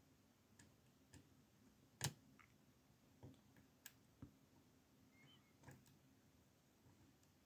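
Faint, scattered clicks of a lock pick and tensioner working the pins in a small 20 mm Amtech padlock, about eight light ticks spread out, the sharpest one about two seconds in.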